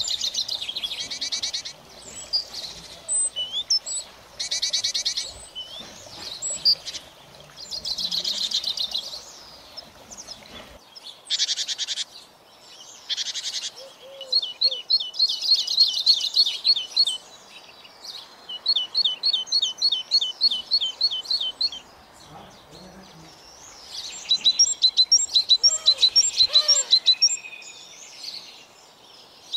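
Small songbirds singing: bursts of high chirps and fast trills, then long runs of short repeated whistled notes.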